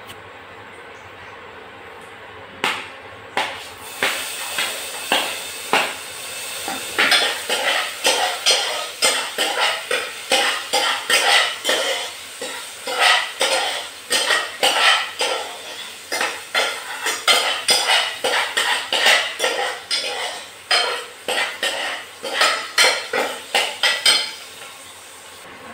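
Metal spoon scraping and clinking quickly against a small saucepan while spices are stirred in hot oil, which sizzles underneath. The scraping starts a few seconds in and stops shortly before the end.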